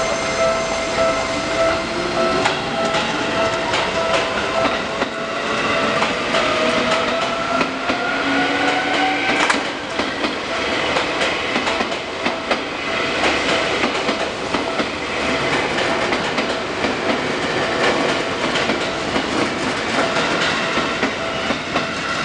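Seibu 2000 series electric train passing over a level crossing. Its motors give a rising whine that stops suddenly about nine and a half seconds in, followed by the clatter of wheels over rail joints. A steady crossing warning bell sounds at the start and again near the end.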